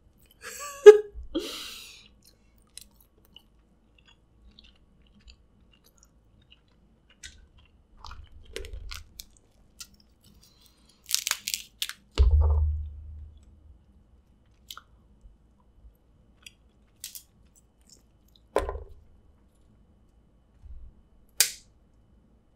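Snow crab leg shells cracking and snapping as they are broken apart by hand, with close-up chewing and wet mouth sounds. The sounds come in scattered short bursts with quiet gaps between them, the loudest about a second in and around twelve seconds in.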